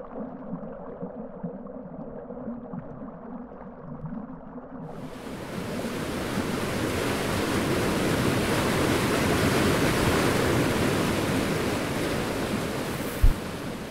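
Sound-designed underwater ambience: a muffled, low watery wash that opens out about five seconds in into a broad rushing surge of water noise, building and then easing off. Near the end there is a single short, dull thump.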